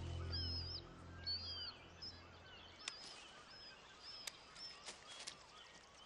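Bald eagle chicks calling in the nest: a series of short, high-pitched chirps, with a few sharp clicks in the second half. Soft background music fades out during the first few seconds.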